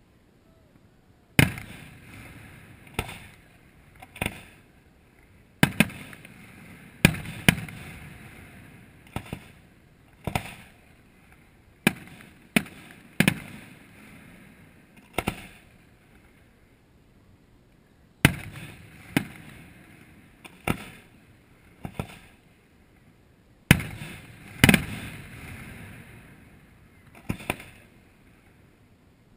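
Aerial fireworks shells bursting in an irregular series of sharp booms, each trailing off, with a couple of short lulls between volleys.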